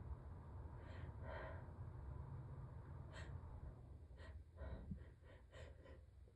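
A person's faint, short intakes of breath, a few spaced ones and then a quicker run of catching breaths near the end: the hitching breaths that build up to an allergy sneeze.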